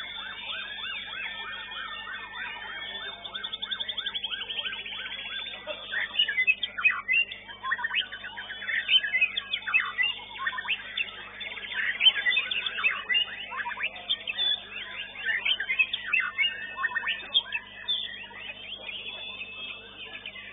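White-rumped shama (murai batu) singing: fast repeated notes at first, then from about six seconds in a louder, varied song of sharp whistles and quick rising and falling sweeps.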